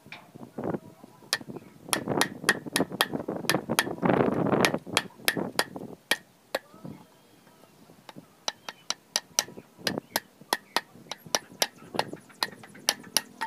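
A machete blade chopping a thin wooden stick against a log: a run of sharp chops, two to three a second, with a scraping stretch about four seconds in. A short lull follows, then a second run of quicker chops.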